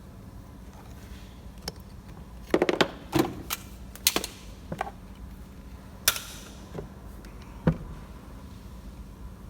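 Irregular sharp metallic clicks and knocks of hand tools and metal parts being handled during work on a starter motor, clustered in quick runs a couple of seconds in, then single knocks spaced a second or two apart, over a faint steady hum.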